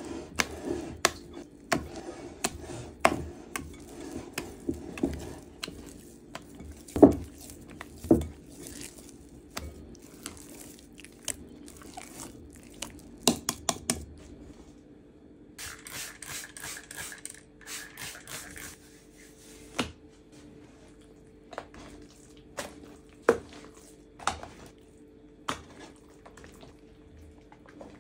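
Hands kneading wet sourdough bread dough in a bowl: sticky squishing with many sharp knocks and clicks as hands and dough hit the bowl, the loudest knocks about seven and eight seconds in.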